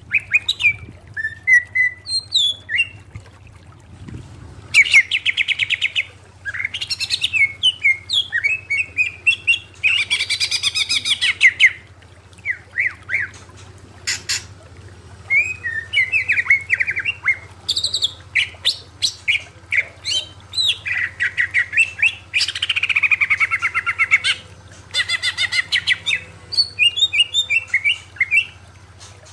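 Cucak ijo (green leafbird) singing loudly in bursts: fast rattling trills alternating with slurred, bending whistled notes, with pauses of a second or so between phrases.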